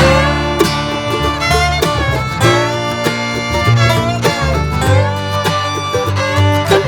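Background music: an upbeat bluegrass-style tune with fiddle, banjo and guitar over a steady bass beat.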